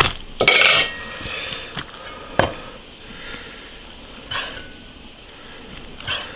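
Cleaver slicing a block of cooked beef on a wooden chopping block. It comes as a few separate strokes, with one sharp knock of the blade on the block about two and a half seconds in.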